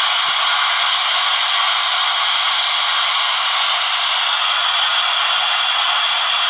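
Simulated steam safety valves blowing off, played through the speaker of a sound-fitted Dapol Gresley A4 model locomotive: a loud, steady hiss.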